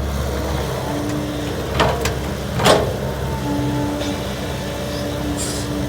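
A Kobelco SK135SR hydraulic excavator's diesel engine running steadily, with a hydraulic whine that comes and goes. Two sharp metallic clanks, less than a second apart, sound about two seconds in.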